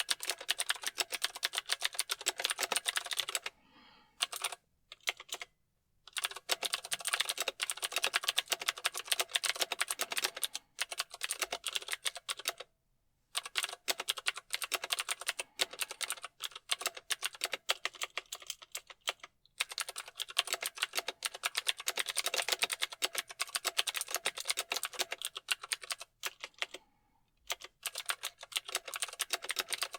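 Mechanical keyboard typing: fast, continuous runs of key clicks, broken by short pauses about four seconds in, around the middle and near the end.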